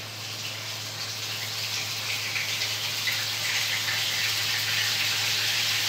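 Marinated chicken pieces sizzling in hot cooking oil as they go into the pan, the sizzle growing steadily louder as more pieces are added.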